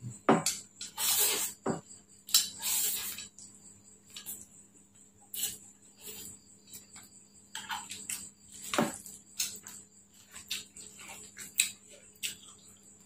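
Eating sounds at close range: chewing and lip smacking as fried noodles, rice and egg martabak are eaten by hand, with scattered light clicks of dishes at irregular moments.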